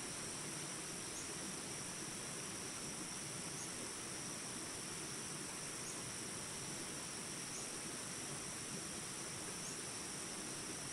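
Steady rush of flowing water, with a continuous high-pitched chorus of crickets or similar insects over it.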